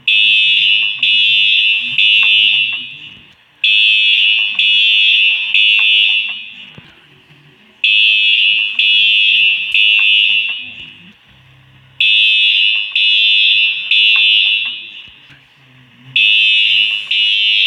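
Fire alarm sounding a loud, high-pitched beep in the temporal-three evacuation pattern: three long beeps in a row, then a short pause, repeating about every four seconds. Each group of three trails off in an echo.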